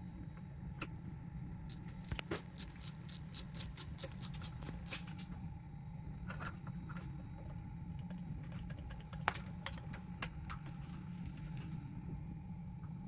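Quick light clicks and taps, as of small hard parts or tools being handled, coming in a dense run in the first few seconds and then more sparsely. They sit over a steady low hum.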